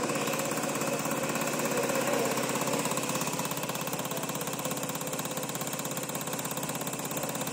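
Cummins 4384786 common rail diesel injector firing on an injector test bench: a steady, fast, even ticking rattle, many clicks a second, over the bench's constant running noise.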